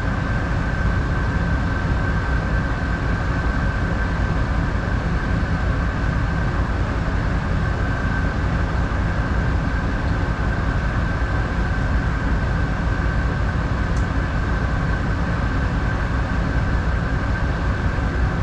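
A tugboat's engines running steadily, heard inside the wheelhouse as an even low drone with a thin steady whine above it.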